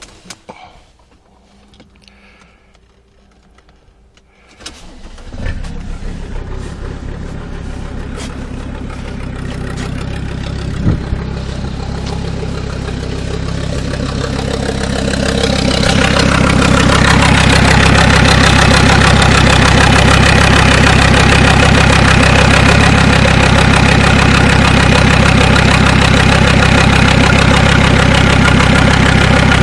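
Mercedes 2.7 CDI five-cylinder diesel cranking and starting about five seconds in, then idling with a fast, even knock that the owner takes for the hydraulic lash adjusters. The sound grows louder from about 14 seconds in and holds steady from about 17 seconds.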